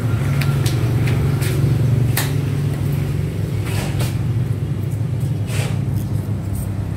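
Scattered small clicks and rattles as wire clips are handled and clamped onto a cordless drill's battery terminals, over a steady low hum.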